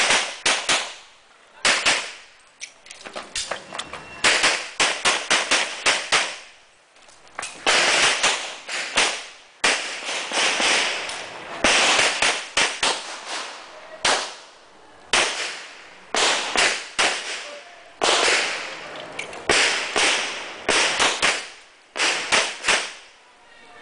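Handgun fired in rapid strings of shots, runs of two to six sharp cracks close together, with pauses of a second or so between strings as the shooter moves through a course of fire. Each crack trails off in a short echo.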